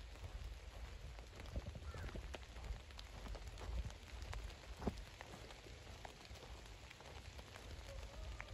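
Rain falling steadily, with many separate drops ticking sharply on close surfaces and one harder drop about five seconds in.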